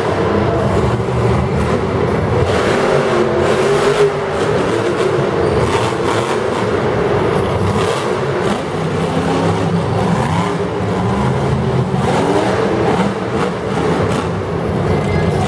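Monster truck's supercharged engine running hard and revving, its pitch rising and falling again and again.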